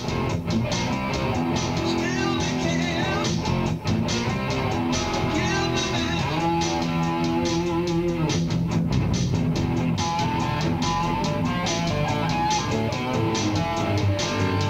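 Instrumental music: electric guitar picked and strummed over a bass guitar line, played without a break.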